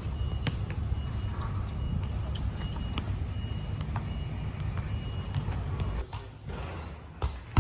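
Steady low rumble of outdoor road traffic, which falls away about six seconds in, followed by a sharp knock near the end.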